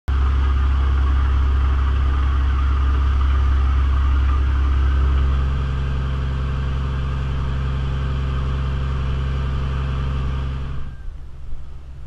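Dive boat's engine running steadily under way: a low, even hum with the rushing wash of the wake over it. It drops a little about halfway through and cuts off abruptly near the end, leaving faint wind noise.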